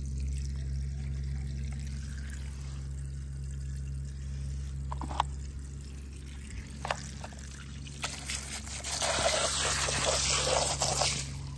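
Water trickling and pouring, rising to a louder rush of running water from about eight seconds in to just before the end. A couple of faint clicks come in the middle.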